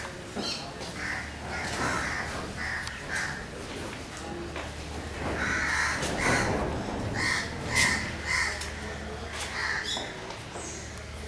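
Crows cawing repeatedly, many short calls one after another.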